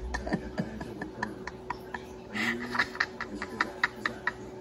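A quick series of light, sharp clicks, about four or five a second at their fastest, like tapping on keys, over a faint steady hum.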